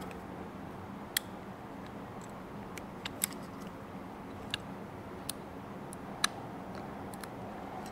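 Scattered light clicks, about seven of them, from a band-type seal clasper tool being worked around a swivel-spool seal to squeeze the stretched seal back to size. A steady low shop hum runs underneath.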